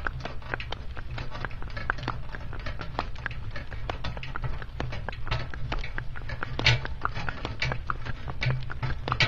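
Pony's hooves clip-clopping on a tarmac road over the steady low rumble and rattle of a two-wheeled exercise cart being pulled along, with a few sharper knocks about two-thirds of the way in.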